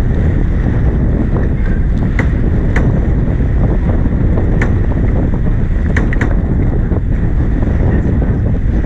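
Steady wind buffeting the microphone over water rushing along the hull of a heeled sailboat under way. A few faint clicks sound through it.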